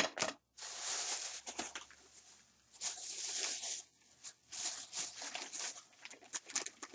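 Thin plastic bag rustling and crinkling in several bursts of about a second each as hands dig into it, with a few sharp clicks near the start.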